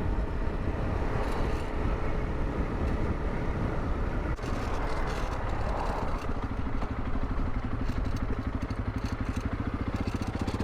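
Honda CRF300 Rally's single-cylinder engine running while riding, mixed with road and wind noise. From about halfway the engine's even low pulsing comes through more clearly.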